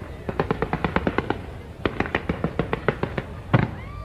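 Fireworks going off in two quick runs of sharp crackling pops, then a single louder bang about three and a half seconds in.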